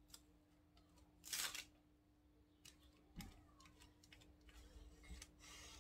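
Quiet kitchen handling sounds: a spatula scraping and rustling on baking paper as cream is spread on a cake strip, with one louder scrape about a second and a half in and a few small clicks. A faint steady hum sits underneath.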